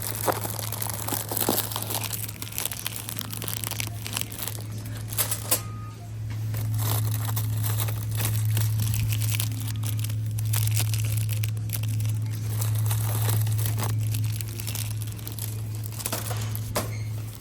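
Plastic snack bags and wrappers crinkling and rustling as they are handled, with scattered clicks and knocks, over a steady low hum that grows louder about six seconds in.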